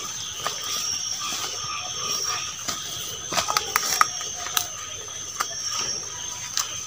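Night insects chirring steadily at a high pitch, with scattered clicks and snaps of people walking through leafy undergrowth.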